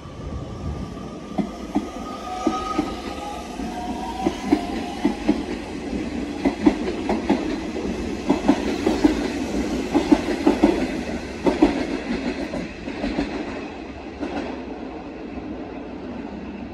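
Nishitetsu 3000 series electric train pulling out and gathering speed past the platform: a motor whine rising in pitch over the first few seconds, then a run of wheel clicks over the rail joints as the cars go by, thinning out as the last car passes.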